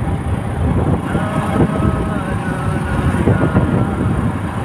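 Wind buffeting the microphone over the steady road and engine noise of a vehicle travelling at speed on a highway.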